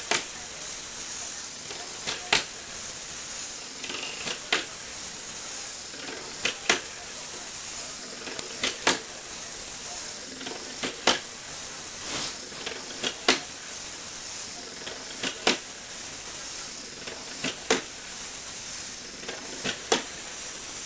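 Motor-driven Lego Technic jumping robot, its plastic feet clacking on a wooden floor in pairs of sharp knocks about every two seconds, over the steady whir of its motor and gears.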